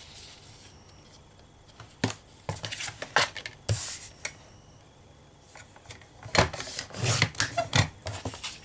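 Patterned paper being handled and trimmed on a Kaisercraft paper trimmer: irregular clicks, taps and short rustles of paper and the trimmer, busiest around six to eight seconds in.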